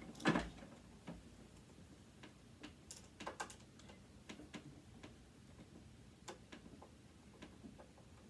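Faint, scattered clicks and taps of a screwdriver and small metal parts being worked inside a sewing machine, with one louder knock just after the start.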